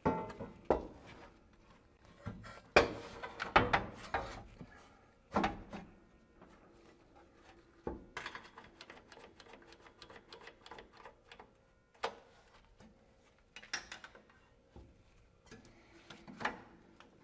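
Irregular metal knocks and clanks, some with a short ring, as a steel cross member is pushed up against a truck's frame rails and clamped in place with one-hand bar clamps, with quieter handling and rubbing between the knocks.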